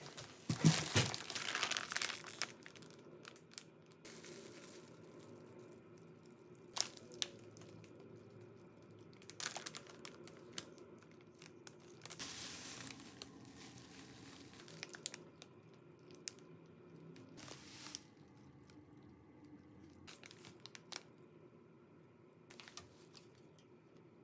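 Groceries being unpacked from a fabric shopping bag: plastic packaging crinkling and rustling, loudest in the first two seconds, then in short bursts with light knocks and clicks as items are handled and set down.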